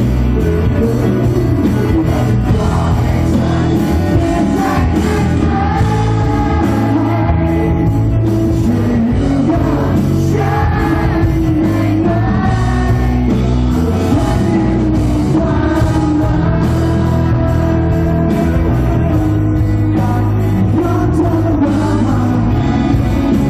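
Live rock band playing, with sung vocals over electric guitar, bass and drums, and a trumpet playing along.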